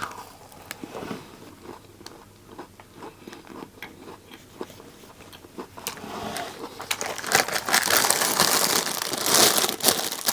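Someone biting and chewing a crunchy churro snack, faint at first and much louder from about six seconds in.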